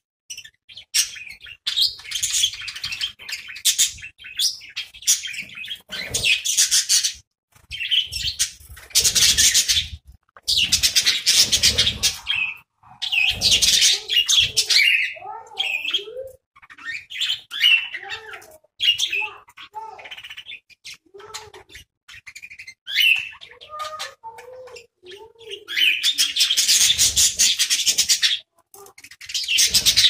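Pet budgerigars chattering: bursts of scratchy warbling and chirps that come and go, with some lower whistled notes, a few of them falling, in the middle and later part.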